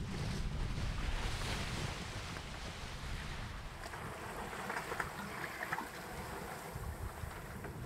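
Water rushing and splashing along the hull of a wooden sailboat underway at sea, with steady wind rumbling on the microphone.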